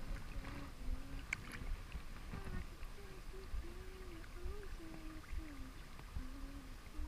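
Low rumbling water and handling noise around someone wading in a river, with a sharp click about a second and a half in. From about two and a half seconds in, a faint wavering hum runs alongside.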